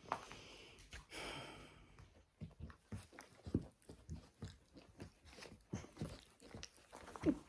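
Small dogs licking a person's face at close range: a run of short, irregular wet licking sounds, after a brief rustle about a second in.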